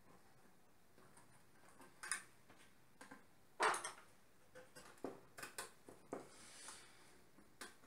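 Faint, scattered clicks and light knocks of wires being fitted into the screw terminals of a metal CCTV power supply box, the loudest click about halfway through, with a brief soft rustle near the end.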